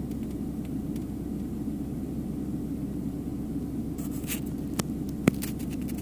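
A cold GM 5.7-litre TBI V8 in a 1992 GMC Suburban idles steadily at about 1000 rpm with a low, even rumble. A few sharp clicks come near the end.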